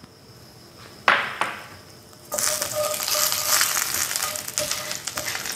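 Dried red chilies frying in oil in a nonstick pan, stirred with a spatula: a single knock about a second in, then a loud, steady sizzle that starts suddenly a little after two seconds in.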